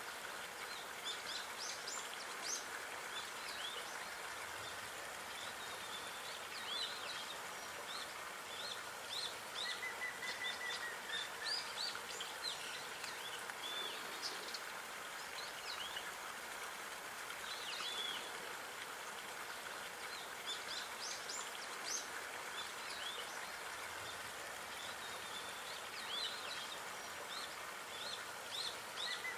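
Small birds chirping and calling, with many short high chirps scattered throughout and a longer held whistle about ten seconds in, over a steady background hiss.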